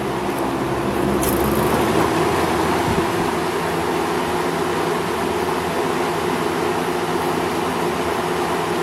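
1975 Kmart K-223 20-inch box fan with its Westinghouse motor running steadily: a rush of air over a low motor hum. A light click about a second in.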